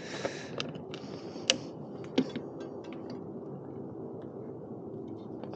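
A handful of sharp metallic clicks and knocks from parts being fitted as the front wheel goes back onto the electric motorcycle's fork, the loudest about a second and a half in, with a brief rustle at the start.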